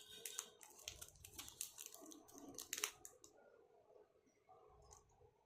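Faint crinkling and clicking of a chocolate wrapper being handled for about three seconds, then near silence with a few faint ticks.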